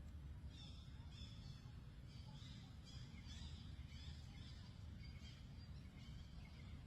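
Faint animal chirping: a run of short, high-pitched calls repeated over several seconds, over a low steady rumble.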